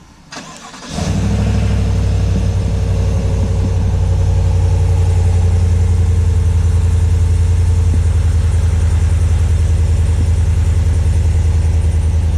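Cold start of a Chevrolet Silverado's 6.2-litre V8 on its factory exhaust: a short crank, then the engine fires about a second in and idles steadily. The stock exhaust note is subtle and quiet.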